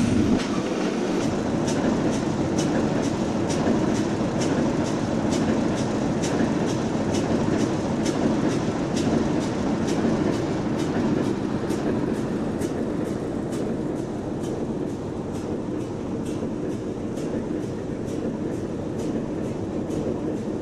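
Train wheels rolling over jointed track: a steady rumble with an even clicking of about three a second as the wheels of the ballast hopper cars cross the rail joints, easing slightly in the second half.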